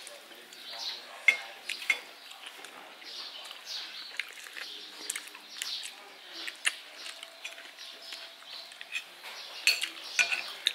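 Eating sounds at a meal: chewing and mouth smacks, with scattered sharp clicks of spoons and forks against ceramic plates and bowls.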